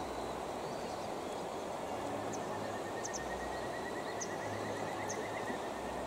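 Steady rush of river water flowing, with a faint high trill and a few small chirps behind it.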